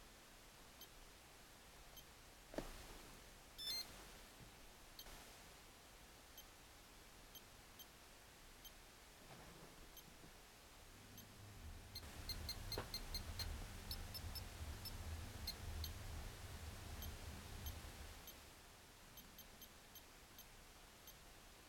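Graupner MC-20 HoTT radio transmitter giving short, high key beeps as its touch pads are pressed and scrolled through the menus. They come in scattered single beeps, with a quick run at about five a second a little past the middle. A low rumble sits under the middle part.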